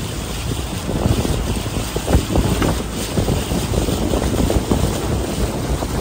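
Wind buffeting the microphone of a moving river boat, with water rushing past the hull and the low rumble of the boat's motor underneath.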